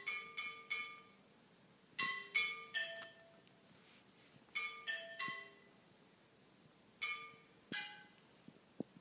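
Four clay flowerpots struck in turn, each giving a short, clear, ringing tone that dies away quickly. They come in quick groups of three or four notes, with pauses between the groups and a few light taps near the end.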